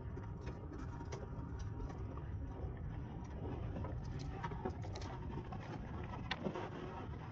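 Bicycle riding along a paved path: a steady low rumble of wind and tyres, with scattered faint clicks.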